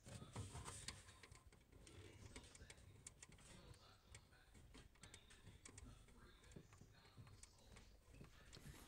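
Near silence with faint, scattered small clicks and ticks: a braided supply line's metal nut being unscrewed by hand from a shutoff valve under a sink.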